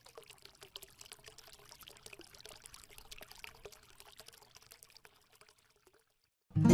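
Logo intro sound effect: a faint, dense crackle of many small ticks that stops about five and a half seconds in. Near the end a strummed acoustic guitar starts, much louder.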